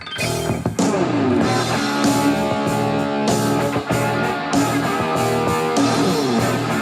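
Recorded rock music played back: guitar chords, then the full band with drums comes in about a second in and plays on steadily.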